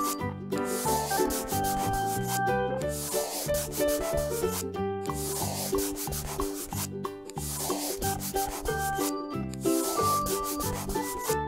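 Looping instrumental background music with a bass line and shifting melody notes, with a scratchy rubbing noise layered over it. Both stop for a moment about every two seconds.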